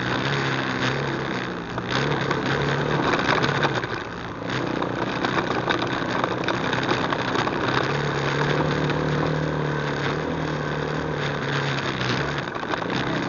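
ATV engine running as the quad drives along a rough trail, its pitch shifting with the throttle in the first few seconds, then holding steadier.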